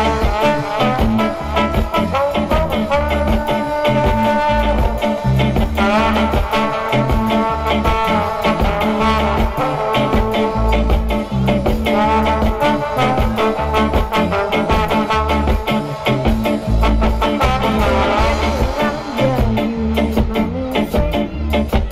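Live band playing an instrumental passage with a steady beat and held notes, without vocals.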